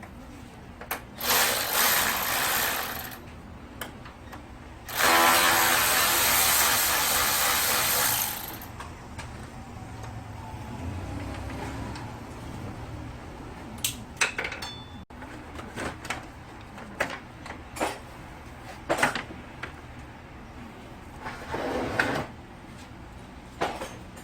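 A power tool running in two bursts, one short and one of about three and a half seconds, followed by scattered clicks and knocks of tools and parts being handled.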